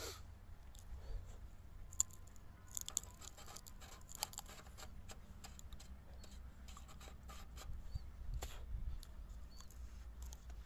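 Faint scattered clicks and scratches of hands working at a small diesel pump engine that is not running, over a low steady rumble. Three short ticks are a little louder: about two seconds in, near three seconds and about eight and a half seconds in.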